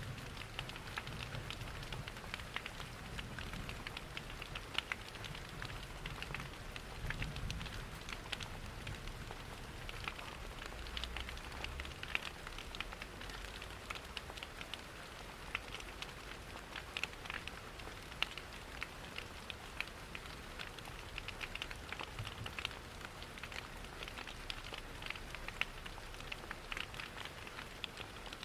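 Steady rain pattering, mixed with a fireplace's wood fire crackling and popping in many small, irregular clicks.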